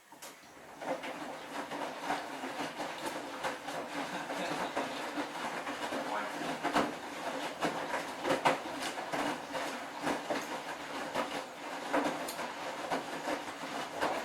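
Esatto front-loading washing machine running a cycle: a steady motor hum with the drum turning and irregular knocks and clatter throughout.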